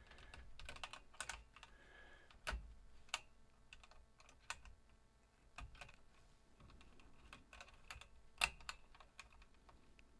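Irregular small clicks and taps of parts being handled and fitted inside an opened Commodore 1571 floppy disk drive, with two louder knocks, one about two and a half seconds in and one about eight seconds in.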